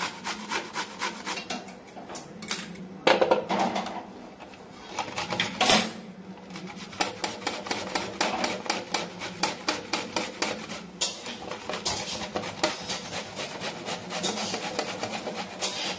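Raw potato and then carrot grated on a flat stainless-steel hand grater, quick rasping strokes at about four a second. There is a thinner stretch with two louder knocks, about three and six seconds in.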